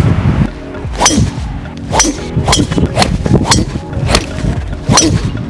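Background music with sharp percussive hits about twice a second over a steady low bass.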